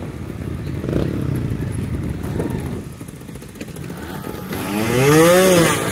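Trials motorcycle engine running at low revs, then revved hard once near the end, the pitch climbing and falling back within about a second.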